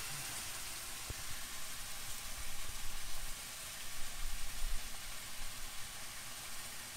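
Bone-in pork chops sizzling in butter and sherry wine in a cast-iron skillet: a steady frying hiss with light crackling.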